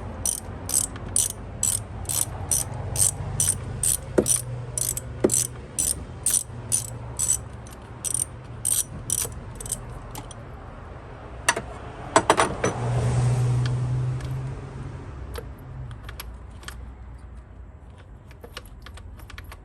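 Ratchet wrench clicking steadily, about two or three clicks a second, as it unscrews a spark plug through a swivel and extension; the clicking stops about ten seconds in. A few knocks of tools and a short rustle follow.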